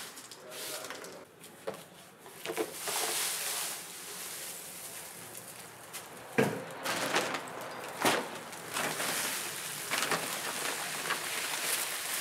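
Broom sweeping dry leaves and debris across a concrete floor, then a plastic dustpan scraping as it scoops the pile and rustling leaves tipped into a plastic bag. Several sharp knocks stand out, the loudest about halfway through.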